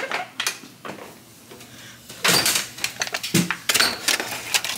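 Metal clattering and scraping as the bottom broiler drawer of a gas range is worked and a disposable aluminium foil pan with a steak is slid in onto the broiler rack: a few light knocks, then a loud scrape about two seconds in, followed by a run of clicks and knocks.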